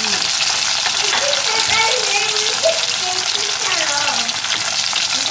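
Flour-coated tilapia fillets frying in hot oil, a steady sizzle.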